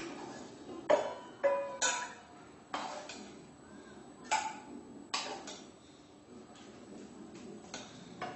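A metal spoon clinking against a steel bowl and the kadai as egg curry is ladled out: about seven separate, irregular clinks, a few ringing briefly.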